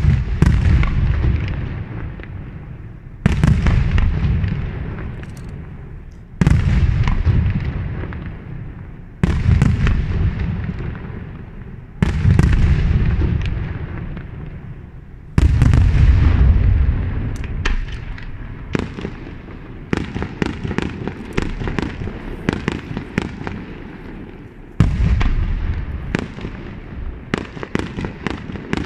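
Aerial firework shells bursting: a heavy boom about every three seconds, each fading into a long rumble and crackle. In the second half the booms give way to a quick run of many sharp cracks.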